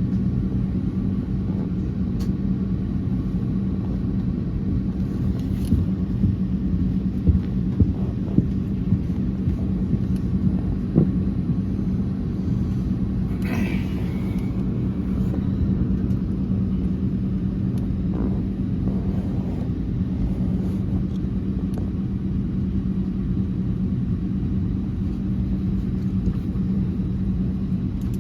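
Cabin noise inside an Airbus A319 during pushback: a steady low rumble with a constant hum, and a few light knocks in the middle of the stretch.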